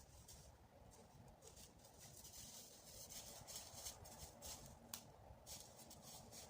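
Faint, irregular scratchy rustling and crackling, with a sharper click about five seconds in.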